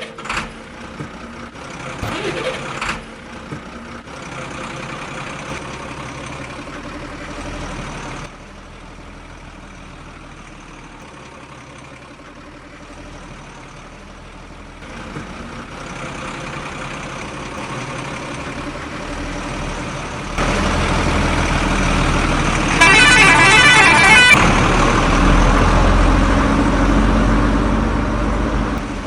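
A truck engine running, with the level dropping for a while and then rising again, louder over the last several seconds. A horn sounds for about a second and a half, a wavering tone, around three quarters of the way through.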